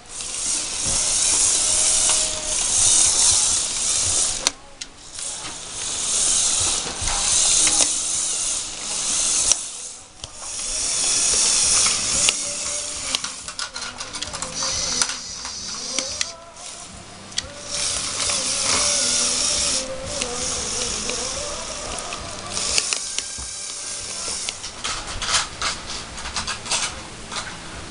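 LEGO Power Functions XL motors driving a LEGO Technic monster truck's gear train, a whirring, clattering gear noise. It comes in long runs that drop away briefly and start again several times.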